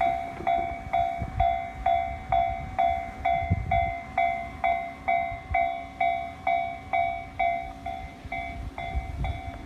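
Japanese railway level-crossing warning bell ringing steadily, about two strikes a second, over the low rumble of a freight train passing on the line.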